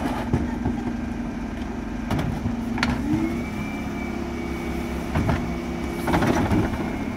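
Dennis Elite 6 refuse truck idling, then its engine speed steps up about three seconds in and holds as the Terberg OmniDe lift's hydraulics raise two wheelie bins, with a thin high whine. Knocks and clatter come from the plastic bins against the lift.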